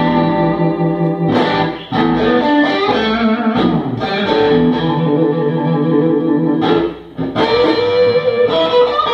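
Fender Stratocaster with Ardizzi single-coil pickups, played through an Ibanez SD9 distortion pedal and a Fender Hot Rod Deluxe III tube amp: held, distorted chords and notes ringing out, with brief gaps about two and seven seconds in.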